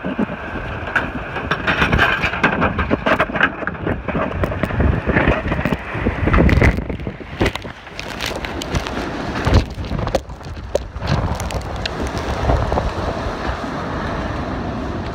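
Car being driven through a wildfire: a loud, rushing rumble of engine, road and wind noise with frequent sharp knocks and crackles.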